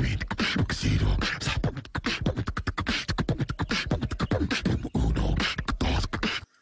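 Human beatboxing: a fast, dense run of mouth-made kick, snare and hi-hat sounds that cuts off abruptly just before the end.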